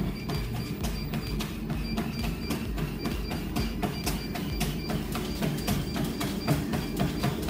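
Feet pounding a running treadmill belt in a quick, even rhythm of footfalls, with music behind.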